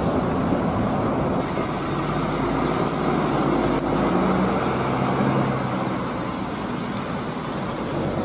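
Large bus engine running steadily as the bus moves, with road traffic noise around it.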